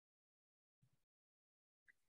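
Near silence: a gap in the webinar audio with only the faintest traces of room tone.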